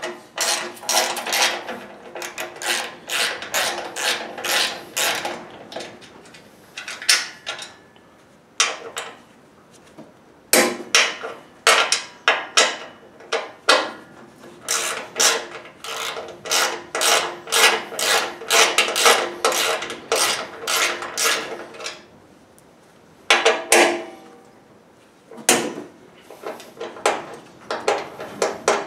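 Socket ratchet clicking rapidly as bolts are backed out of a snowblower's auger housing, in several long runs broken by short pauses.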